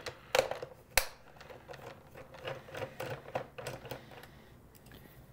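Screwdriver backing a small screw out of a plastic calculator case: two sharp clicks about half a second and a second in, then a run of light ticks and scraping as the screw turns out.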